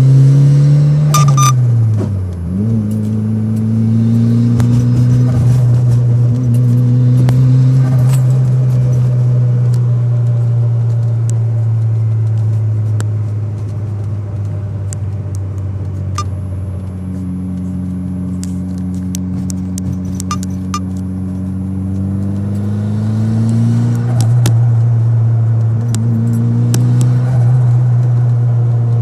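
Turbocharged car engine running through acceleration and gear changes, its speed falling and picking up again several times, with sharp clicks at several points. These are the odd clicks the owner hears when shifting, in a car that also has a boost leak and is not getting boost.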